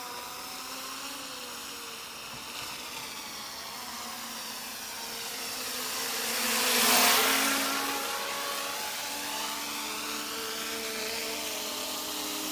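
Electric motors and propellers of a 3D-printed cruiser quadcopter in flight, a steady multi-tone whine. It grows louder, with the pitch bending, as it passes closest about seven seconds in, then fades.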